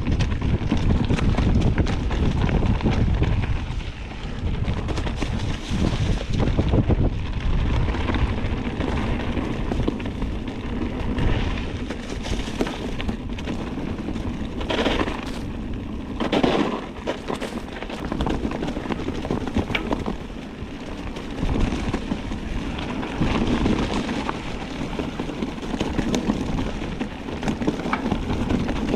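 Strong wind buffeting the microphone: a loud, gusty rumble, with two brief louder rushes about halfway through.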